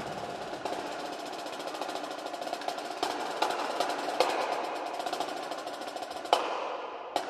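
Marching snare drum played solo with sticks: fast rolls and rapid strokes with scattered louder accents, closing on a hard accent about six seconds in and then a single hit near the end.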